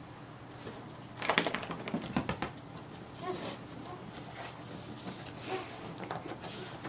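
Beagle rubbing and rolling along fabric couch cushions to dry itself off after a bath: scattered rustles and clicks, busiest between about one and two and a half seconds in.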